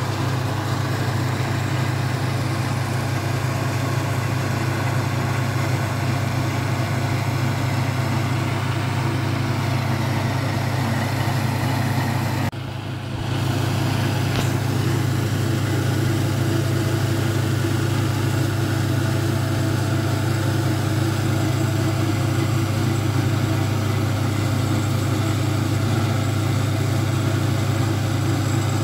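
Tracked stump grinder's engine running at a steady speed, with one short dip about twelve seconds in.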